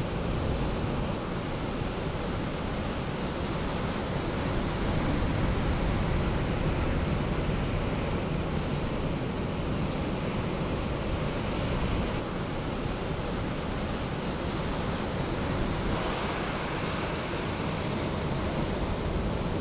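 Heavy winter storm surf breaking on a beach break: a steady, unbroken rush of crashing waves and whitewater.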